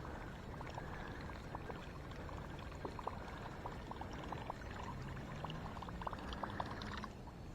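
Faint, steady gurgling of moving river water, with scattered small ticks.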